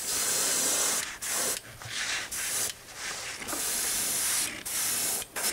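Airbrush spraying opaque white paint onto a handmade lure body in a string of short hissing bursts, about seven, starting and stopping.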